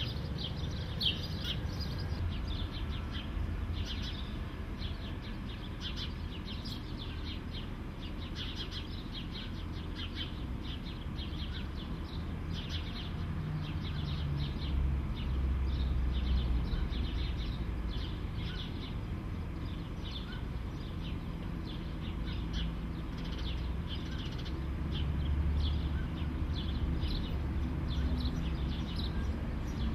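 Small birds chirping over and over in short, high calls, over a steady low rumble that swells twice.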